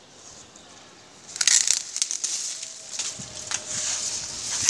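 Dry sugarcane leaves and stalks rustling and crackling as a hand pushes through the plant, starting about a second in.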